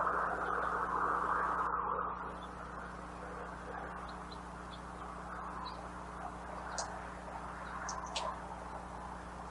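A few brief, faint high bird chirps over a steady background hiss that drops in level about two seconds in.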